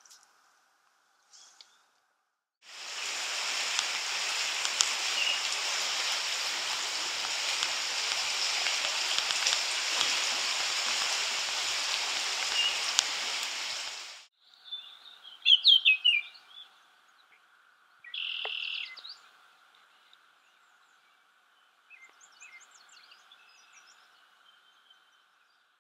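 Shallow river water rushing over a rocky riffle, a loud steady rush that starts a few seconds in and cuts off about midway. After it, birds chirp and call in the trees in short scattered phrases, over a faint steady high hum.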